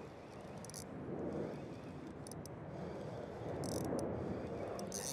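Spinning reel playing a hooked fish, with short buzzing bursts as the drag gives line, over a steady rushing background noise.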